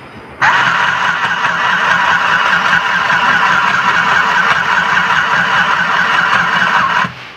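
Portable mini sewing machine's small electric motor running at full speed, the needle stitching through a folded terry towel. It starts abruptly about half a second in and stops suddenly near the end.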